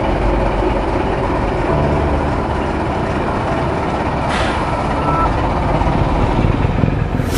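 Scania S-series truck's diesel engine running as the truck rolls slowly, with a brief hiss about four seconds in.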